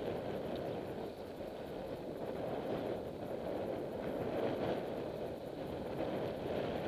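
Steady rushing noise of riding a road bicycle: wind over the microphone with the hum of moving along the road, even throughout.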